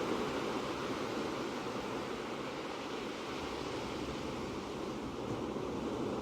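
Ocean surf: a steady rush of waves that eases slightly and swells again about five seconds in.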